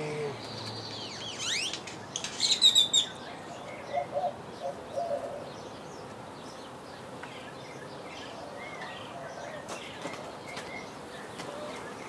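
Songbirds chirping, with quick sweeping high notes and short bursts of song in the first few seconds, loudest about two and a half seconds in, then fewer, fainter chirps.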